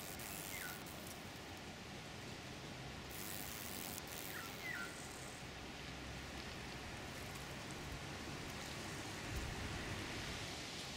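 Faint steady outdoor background hiss, with a few brief high chirps about half a second in and twice around four and a half seconds in.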